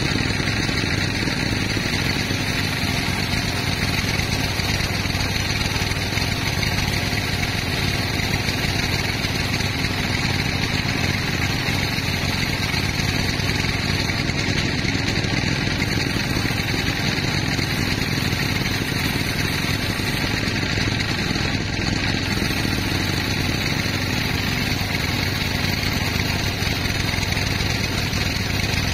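Sawmill machinery running steadily: a constant engine-like drone that does not change in level or pitch.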